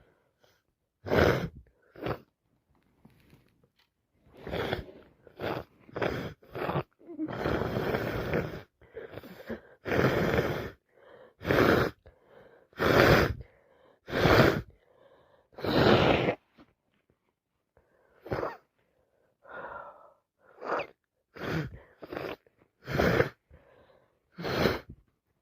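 A woman with a cold sneezing and blowing her nose over and over: about twenty short, loud bursts roughly a second apart, with one longer burst of about two seconds a third of the way in.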